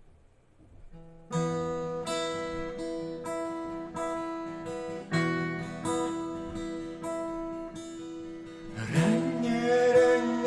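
Acoustic guitar playing a song introduction, with chords struck roughly once a second after a brief quiet start. A voice begins singing near the end.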